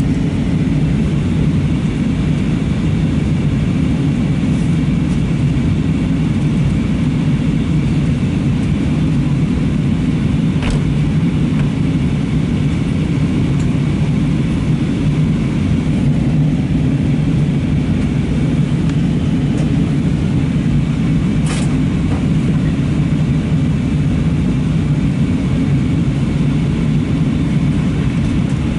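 Steady in-flight cabin noise inside an Airbus A320-232: airflow over the fuselage and the drone of its IAE V2500 engines, mostly low. A faint click comes about 11 seconds in and another about 22 seconds in.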